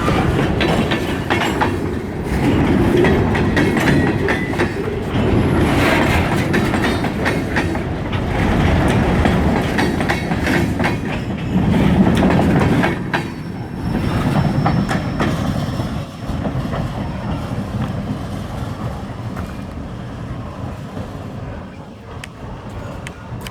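A freight train's cars rolling past, the wheels clicking over the rail joints amid steady rumbling. It fades gradually over the last several seconds as the train moves away.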